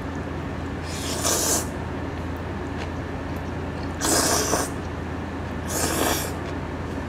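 A person slurping jjapagetti black-bean instant noodles off chopsticks: three loud slurps, about a second in, at about four seconds and near six seconds, over a steady low hum.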